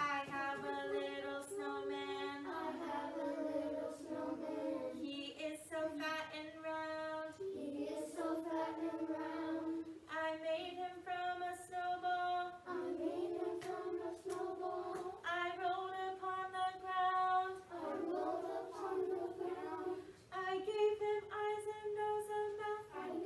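A woman and young children singing a simple children's song about a snowman together, in short phrases with long held notes.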